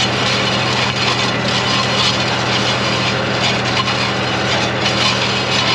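Tractor engine running at a steady pitch while pulling a planter toolbar through the soil, with a steady noisy hiss over it.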